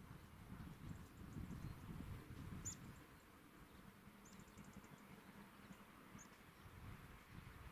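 Faint outdoor quiet with a low wind rumble on the microphone and a few short high bird chirps: one near three seconds in, a quick run of chirps just after four seconds, and another near six.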